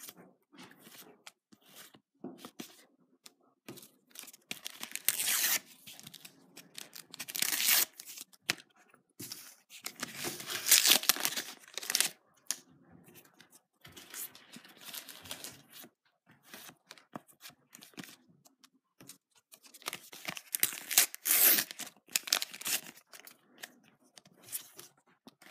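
Panini sticker packets being torn open in several rips, the loudest in the middle and another near the end. Between the rips come soft clicks and rustles as the stickers are handled and flicked through.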